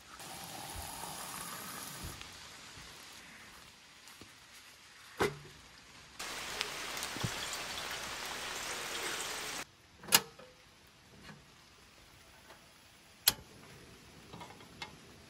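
Water poured from a plastic bottle into a stainless steel kettle, an even splashing rush for about three and a half seconds in the middle that stops suddenly. Two sharp clicks follow, about three seconds apart.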